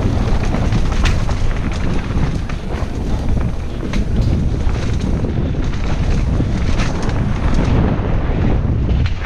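Wind rushing over the microphone on a fast downhill mountain-bike run: a steady, loud low rumble. Many small clicks and knocks run through it, the rattle of the bike over rough ground.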